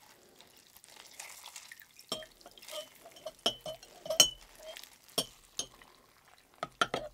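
A thin metal utensil clinks irregularly against a glass bowl while stirring hot water to dissolve soaked gelatin leaves, with water dripping and splashing as the wet leaves are squeezed out over the bowl.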